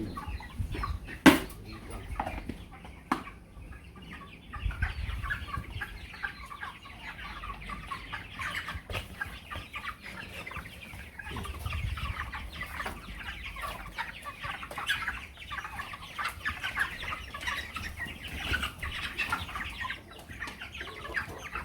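A flock of young broiler chickens calling continuously with many short, high cheeps and clucks. There is one sharp knock about a second in, and a low rumble comes and goes twice.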